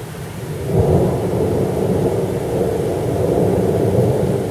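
Thunder rumbling: it swells about a second in and rolls on loudly for several seconds over the steady sound of heavy rain.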